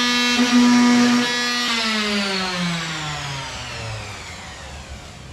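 Small handheld electric power tool running at a steady high whine, used to smooth cut aluminum. It is switched off under two seconds in, and its pitch falls steadily as the motor spins down.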